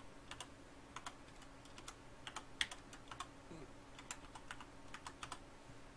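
Typing on a computer keyboard: a run of quiet, irregular key clicks, with a faint steady low hum underneath.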